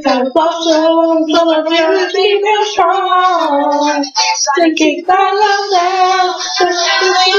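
Young female voices singing a song, holding long notes, with a couple of short breaks about four seconds in.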